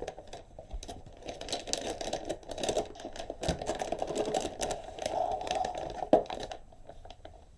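Motherboard packaging being handled: crinkling and rustling with many light clicks and taps as the board is worked out of its box.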